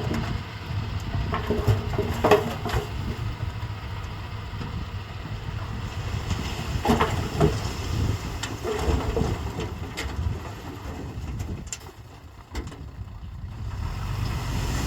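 Bulldozer's diesel engine running with a low, steady rumble, with scattered metallic clanks and knocks. The engine sound drops for a moment about twelve seconds in, then picks up again.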